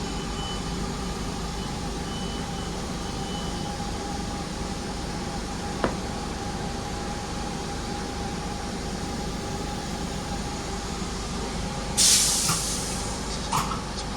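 Class 323 electric multiple unit standing at the platform, its equipment giving a steady hum with a held tone. About twelve seconds in comes a loud, short burst of air hiss from its pneumatic system.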